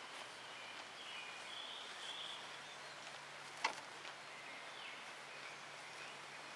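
Outdoor field ambience with small birds chirping and singing in the background, and a single sharp click a little over halfway through.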